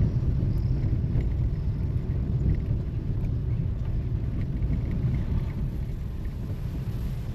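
Car driving along a firm dirt road: a steady low rumble of engine and tyres.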